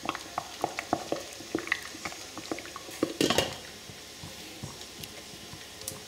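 Water boiling in a stainless steel pot, with small irregular bubbling pops. About three seconds in, a glass pot lid is set on with a brief clatter, and the bubbling is quieter after that.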